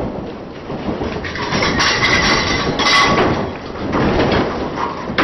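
A six-story light-frame wood building shaken in a simulated earthquake: dense, loud rattling, clattering and knocking of the room's framing and furnishings, loudest about two to three seconds in.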